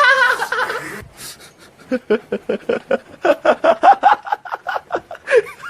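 A person laughing in a quick run of short "ha-ha-ha" bursts, starting about two seconds in after a brief lull.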